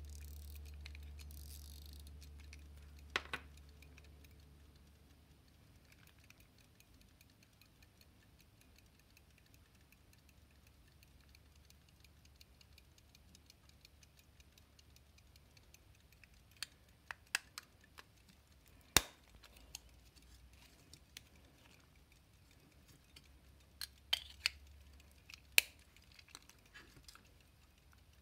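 Scattered sharp metallic clicks and snaps from an antique silver pocket watch being handled: the hinged case and swung-out movement being worked and closed, with the loudest snap about two-thirds of the way through. A faint low hum in the first few seconds.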